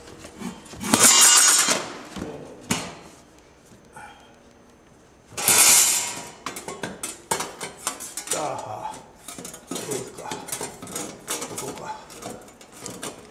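Steel band saw blade ends being shifted and clamped in a joint clamping jig: two loud metallic scrapes, about a second in and again near the middle, then a run of light metal clicks and taps with some ringing as the ends are lined up.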